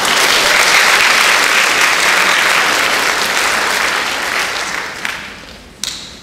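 Audience applauding in a hall. The clapping fades away over the last couple of seconds, and a single sharp knock comes near the end.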